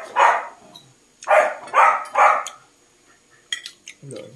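A dog barking in quick repeated barks: one bark at the start, then a run of three about a second in. A few light clicks follow near the end.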